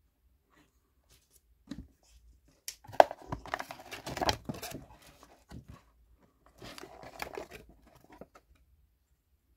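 Cardboard box and paper cards being handled: rustling, sliding and scraping of card and paper with light knocks and clicks, in two busy spells about three seconds in and again around seven seconds, after a quiet start.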